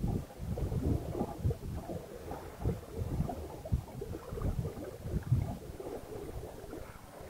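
Wind buffeting the microphone in uneven gusts over the wash of water along a sailing yacht's hull as it moves under way.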